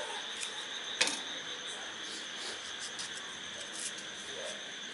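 Scissors snipping green chillies, with one sharp snip about a second in and a few fainter clicks, over a steady high-pitched chirring of insects.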